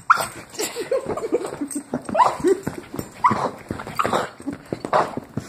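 King Charles spaniel whimpering and yipping in a rapid run of short high cries, several rising in pitch: excited greeting whimpers.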